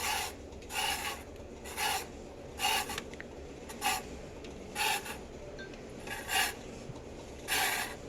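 Washing machine drum grating as it turns, a short rasping scrape about once a second, nine times. It is a rubbing fault that the technician suspects could mean worn drum bearings.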